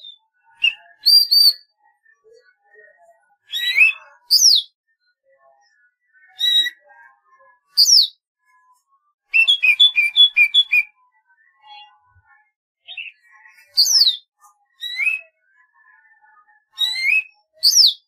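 Golden-fronted leafbird singing: loud, clear whistled phrases every second or two, mostly quick rising and falling sweeps, with a fast run of about eight repeated notes near the middle.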